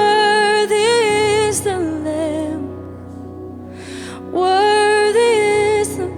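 Live worship music: a woman sings two long held phrases with vibrato over a steady, sustained instrumental backing.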